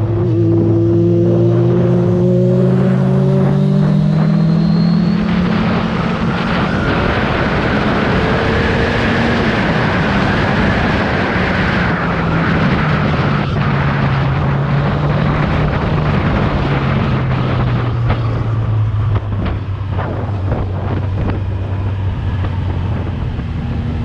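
Kawasaki Z1000R's inline-four engine on its stock exhaust, pulling up through the revs in the first few seconds, then running at speed under heavy wind rush before the engine note falls away gradually as it slows.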